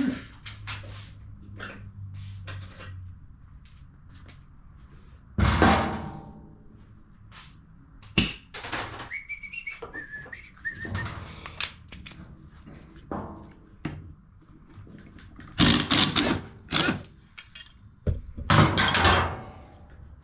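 Hands-on handling noises under a laid-over push mower: a run of thunks and clicks and three louder scraping, rustling bursts of about a second each as debris wrapped around the blade is pulled at. About nine seconds in comes a short high squeak-like tone that steps down in pitch.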